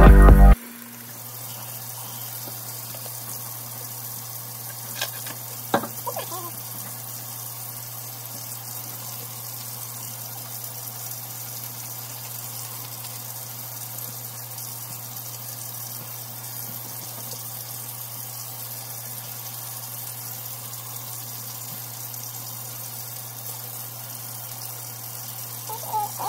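Kitchen tap running steadily into the sink, a steady rushing hiss with a low hum under it. There are a couple of faint knocks about five and six seconds in.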